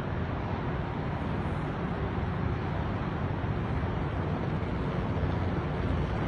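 Small helicopter flying past overhead: a steady drone of rotor and engine, growing a little louder near the end as it comes closer.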